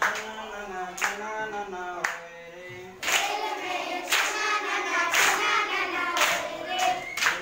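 A group of children singing a song together in chorus, with hand claps keeping time about once a second.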